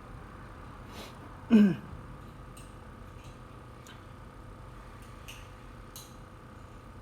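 Light, scattered ticks of small metal tools working on a phone logic board, over a steady equipment hum. About a second and a half in comes one short, louder low sound that drops in pitch.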